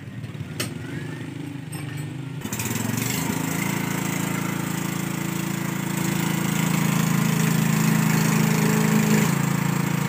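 Lifan 14 hp air-cooled single-cylinder diesel engine running steadily at speed, coming in suddenly about two and a half seconds in and getting a little louder from about six seconds in. Before that there is a fainter low engine rumble and a single click.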